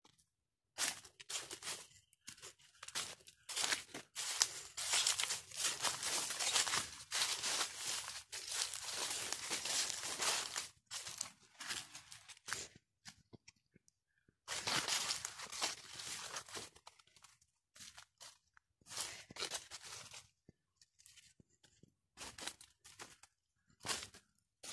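Footsteps crunching and rustling through dry leaf litter on a forest path, dense and irregular, breaking off briefly about halfway, then sparser towards the end.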